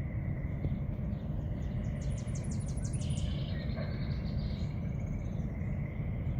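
Marsh ambience: a steady low rumble with a faint steady high buzz, and a small bird's rapid high trill of about eight notes a couple of seconds in.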